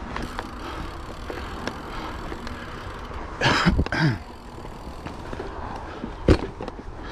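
Mountain bike riding over a trail: steady rolling and wind noise, with a louder rush about three and a half seconds in and a single sharp knock near the end.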